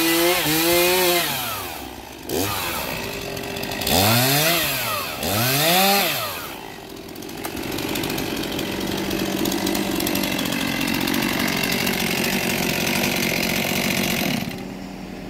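Stihl MS 241 C two-stroke chainsaw at full throttle finishing a cut through a cherry log with a dull chain. It drops off about a second in and is revved in a few quick blips that rise and fall in pitch, then settles to a steady idle.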